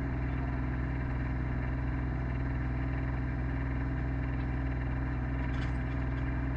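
RK25 compact tractor's diesel engine idling steadily.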